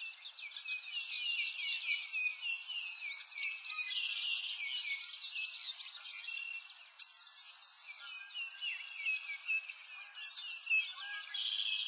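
Dense chorus of many small songbirds chirping and twittering, short rapid calls overlapping throughout, thinning briefly a little past the middle.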